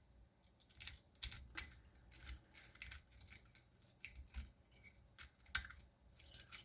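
Irregular small metallic clicks and scrapes of a lock-picking tool worked in a cheap warded padlock's keyway, with a light jingle of other keys on the ring.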